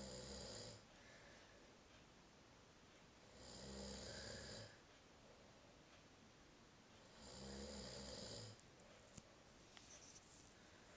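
A sleeping person snoring in a slow rhythm, one snore about every four seconds. Each snore lasts about a second, with quiet gaps between.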